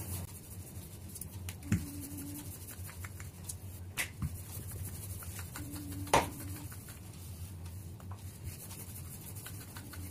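Rolling pin rolling samosa dough out on a stone rolling board: a faint rubbing, with a few soft knocks as the pin is moved.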